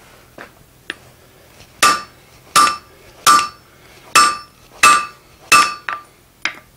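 Hand hammer striking red-hot steel on an anvil while forging a hardie: a couple of light taps, then six solid blows about two-thirds of a second apart, each with a short metallic ring, and two lighter taps near the end.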